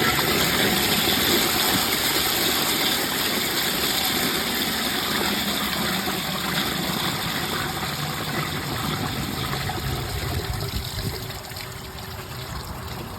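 A 2010s Vortens Vienna round-bowl toilet flushing from a mid-tank filled to the overflow: a steady rush of water into the bowl that eases off a little near the end. No siphon forms, because so much water floods the trapway that the siphon breaks.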